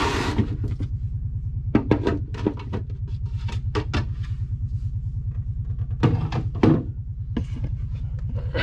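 Scattered clicks and knocks of plastic parts being handled as an ice maker is taken apart, over a steady low hum.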